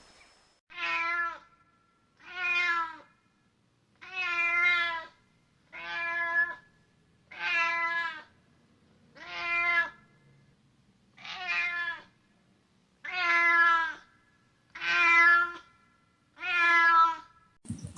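Domestic cat meowing repeatedly, ten separate meows about two seconds apart.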